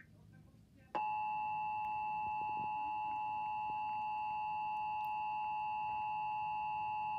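Emergency Alert System attention signal: the steady two-tone alarm (853 and 960 Hz together) starting about a second in and holding unchanged. It announces the start of an emergency alert broadcast, here an Amber Alert for a child abduction.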